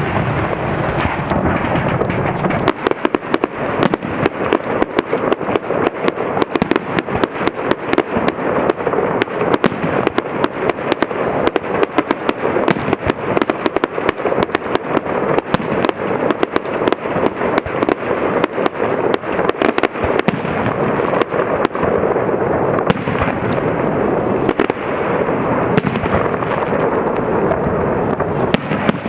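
Fireworks display: a dense, rapid run of crackling bursts and pops, many a second, that starts about two seconds in and thins out somewhat over the last few seconds.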